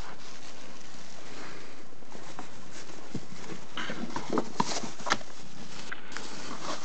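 Cats feeding from plastic food packets in snow: rustling packaging and small knocks over a steady hiss, with a cluster of sharp clicks about four to five seconds in.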